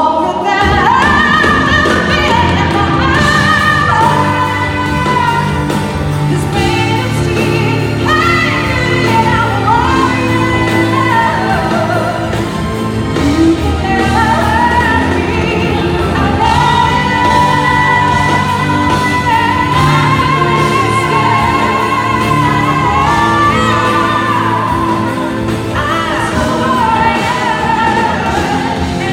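Live pop ballad performance: a singer holding long, wavering high notes and vocal runs over a full band, with the reverberation of a large hall.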